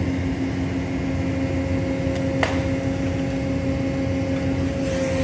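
Excavator's diesel engine running steadily at working speed, with one sharp knock about halfway through.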